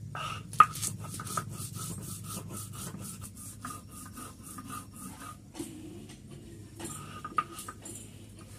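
Hand-grinding a wet green paste on a flat grinding slab with a hand-held roller: quick back-and-forth scraping strokes, about four a second. The strokes stop for about a second past the middle, then start again.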